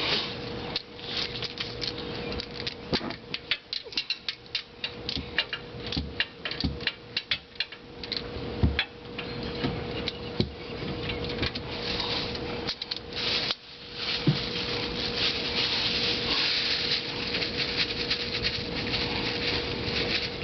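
Plastic bag crinkling and rustling on a hand as it works at a stubborn oil drain plug, with many small irregular clicks and scrapes. A steady faint hum runs underneath.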